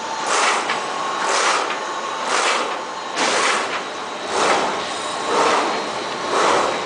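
A large automatic production machine running in its working cycle, with a swishing, clattering stroke that repeats about once a second over a steady machine hum.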